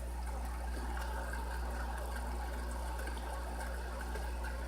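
Steady low hum with a faint watery hiss, typical of an aquarium's pump running.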